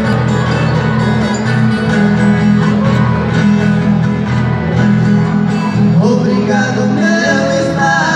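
Acoustic guitar and a viola caipira playing an instrumental introduction together, strummed and picked in a Brazilian country (música caipira) style.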